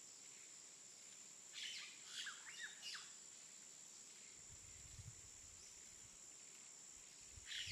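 Faint natural ambience: a few quick bird chirps between about one and a half and three seconds in, and another near the end, over a steady high-pitched insect hum.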